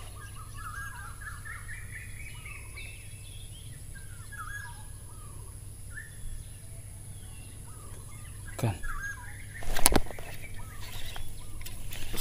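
Birds chirping and calling, many short gliding notes over a steady low background. Near the end there is a sudden loud knock, followed by rustling.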